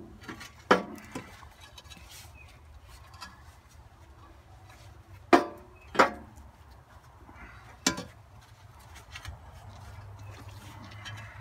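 Four sharp metal clanks, some with a short ring, as a steel loader brace is knocked against the frame of a Sears Suburban 12 garden tractor while it is being fitted. Two of the clanks come close together about halfway through.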